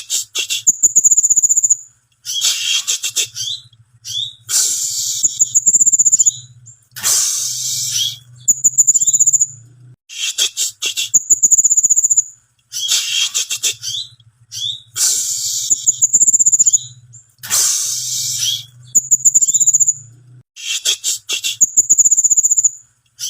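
Cinereous tit (gelatik batu, the 'wingko' type) calling in repeated phrases: high, thin drawn-out whistles alternating with harsh chattering notes, with short pauses between phrases and the same sequence repeating about every ten seconds.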